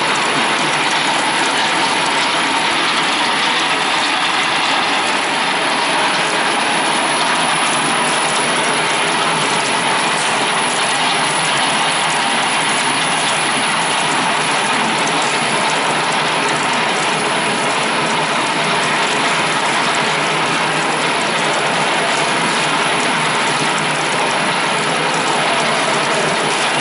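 Three-strand rope twisting machine running, its spinning bobbin carrier and gearing making a loud, steady mechanical clatter of rapid ticks.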